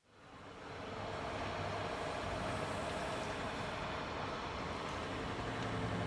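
Steady outdoor city ambience with distant traffic noise, fading in over the first second.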